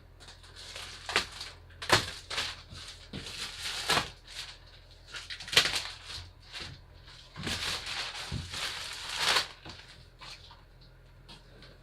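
A large cardboard box is torn and pulled open by hand: irregular ripping, scraping and crinkling of cardboard and packing, with several sharp louder rips and a longer stretch of scraping about two-thirds of the way in.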